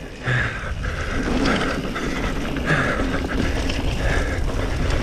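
Mountain bike rolling fast down a dirt trail: steady tyre rumble over packed earth and leaves with wind buffeting the action-camera microphone, and the rear freehub buzzing in short spells while coasting.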